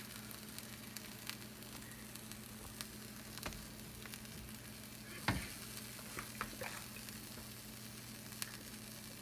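Grilled Reuben sandwiches sizzling gently in a nonstick frying pan, a quiet steady hiss with small scattered crackles over a faint hum. A light knock comes about five seconds in.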